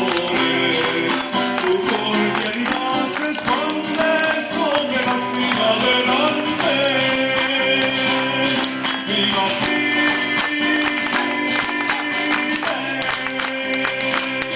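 A cueca played live on a strummed acoustic guitar, with a man singing the melody over it.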